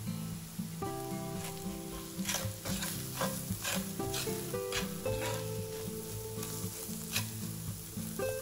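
Food sizzling as it fries in a pan while a utensil stirs it, with a quick run of scrapes between about two and four seconds in and another near the end. Gentle background music plays underneath.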